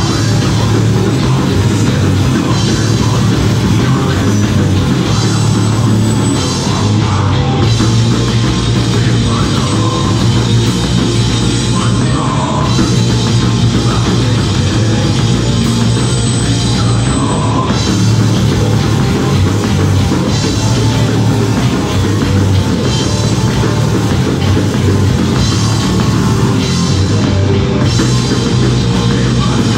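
Live punk rock band playing loud and without a break: electric guitar, bass guitar and a pounding drum kit, with a singer shouting the vocals into a microphone.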